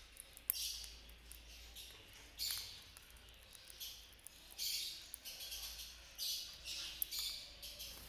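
Caged conures giving short, harsh, high chirps, one every second or two, with small sharp clicks in between.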